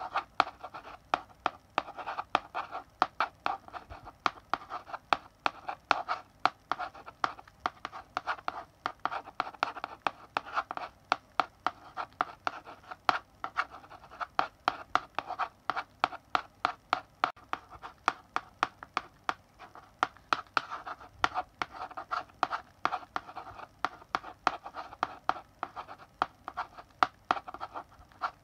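Chalk writing characters on a blackboard: an unbroken run of sharp taps and short scratching strokes, several a second.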